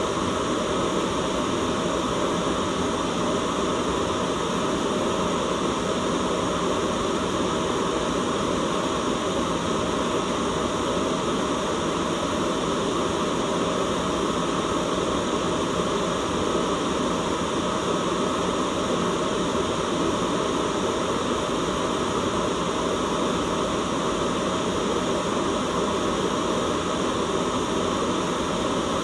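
Steady, unchanging white noise: an even hiss with no breaks or changes, heaviest in the lower-middle range.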